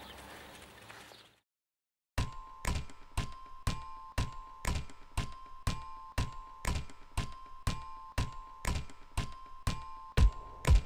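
Electronic music track starting up: a steady beat of sharp thuds, about two a second, with a held high tone pulsing along with it. It comes in after the outdoor background cuts off about a second in and a short silence follows.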